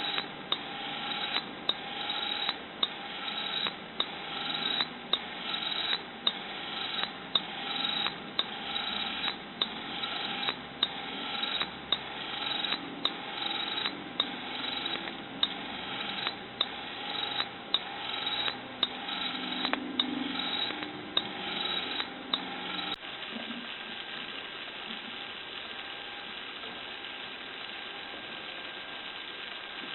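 The drive mechanism of a homemade hose-reel irrigator winding in its hose, clicking in a steady rhythm of about three clicks every two seconds, each click led in by a short rising rasp. About 23 seconds in, the clicking gives way to a steady, even hiss.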